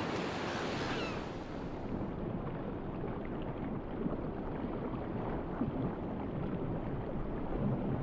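Sea water sloshing and lapping at the surface, giving way about two seconds in to a duller, steady underwater rush.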